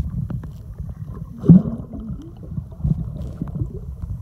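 Lake water heard from below the surface, muffled and dull: a low rumbling slosh with small gurgles and bubbles, and one louder gurgling burst about a second and a half in.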